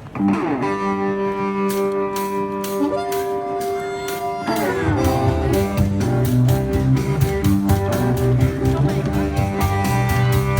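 Live busker band striking up. A held, ringing chord opens, then a drummer's steady ticking beat joins about a second and a half in. About four and a half seconds in, a fuller low bass-and-drum groove comes in.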